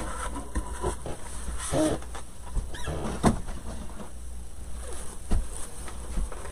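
Light handling noises: ribbon and craft materials being rustled and handled on a worktable, with a few soft knocks and clicks over a low steady hum.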